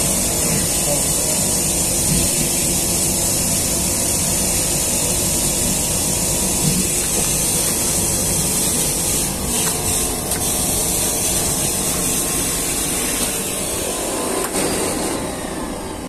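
A 4000 W industrial wet vacuum cleaner running flat out with a loud, steady hissing rush, its hose sucking up dirty water.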